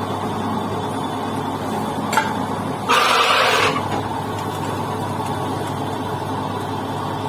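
Lathe running steadily with a low mechanical hum. There is a short click about two seconds in, then a brief, louder harsh hiss lasting under a second.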